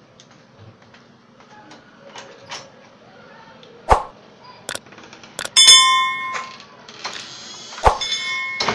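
Subscribe-button animation sound effect: a few sharp clicks about halfway through, then a bright bell ding that rings on briefly. Near the end come a hiss, another click and a second, shorter ring.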